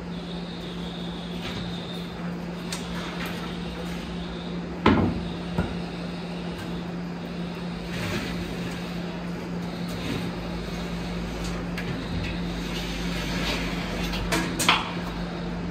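A few sharp knocks and clunks of workshop handling over a steady low hum: one loud knock about five seconds in, a lighter one just after, and two more close together near the end.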